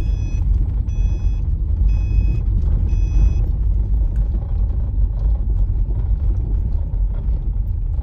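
Low, steady rumble of a car driving slowly on a gravel road, heard from inside the car. Over the first few seconds a high electronic warning beep sounds four times, about once a second, then stops.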